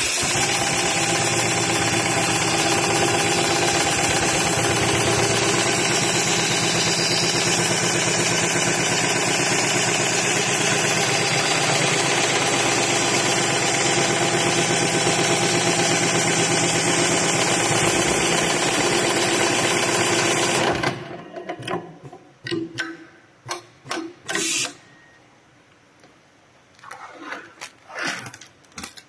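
Heavy-duty programmable lockstitch sewing machine stitching leather belt at speed, a loud steady rapid run of stitches for about twenty seconds that stops abruptly. Several short separate mechanical bursts follow.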